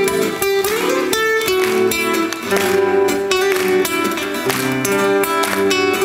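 Instrumental music: an acoustic guitar plucking and strumming with steady accompaniment, no singing.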